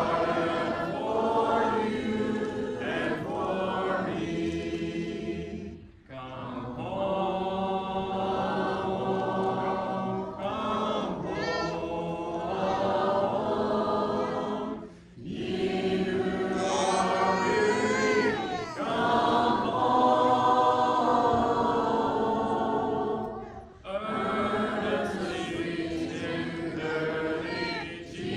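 A church congregation singing a hymn without instruments, in slow sustained lines with a short breath pause between each line, three pauses in all.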